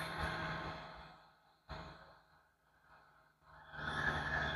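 A man sighing and breathing out heavily through a respirator mask: a long breath fading out about a second in, a single sharp click near the middle, then another long breath near the end.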